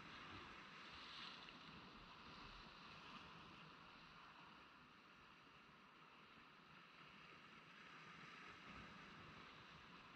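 Near silence: a faint, steady wash of small waves against a rock jetty.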